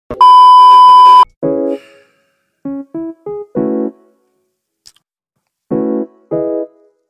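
A loud test-tone beep, the steady tone that goes with TV colour bars, held for about a second. Then short electric-piano chords of an intro jingle: one chord, three quick single notes stepping upward, another chord, and two more chords near the end.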